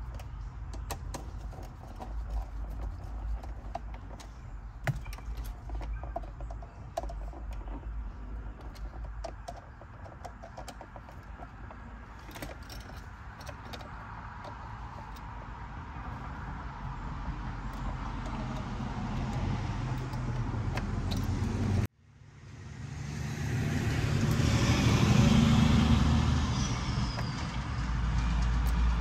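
Small clicks and metallic clinks of a screwdriver and wire ends being worked on a wall outlet receptacle's terminal screws, over a steady low rumble. About two-thirds of the way through, a passing vehicle's sound swells up and fades, louder than the handwork.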